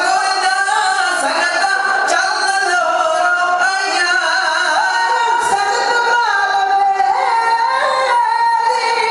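Men singing a Sikh dhadi ballad in Punjabi through microphones, with long held, wavering high notes.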